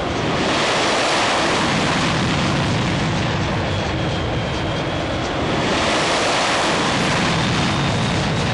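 Jet engine noise of F-16 fighters flying past: a loud, steady rushing that swells about half a second in and again about five and a half seconds in, with a faint high whine.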